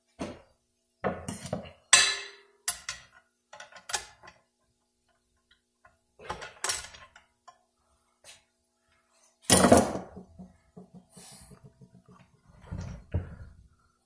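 Metal transmission parts clinking and knocking irregularly against the transmission case as the band and its anchor piece are worked into place. The loudest knocks come about two seconds in and about ten seconds in, one of them ringing briefly.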